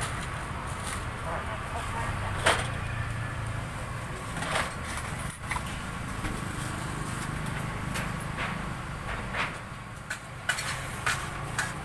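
Street ambience at a roadside food stall: a steady low traffic rumble with scattered sharp clicks and knocks from the stall work, the loudest about two and a half seconds in and a quick run of them near the end.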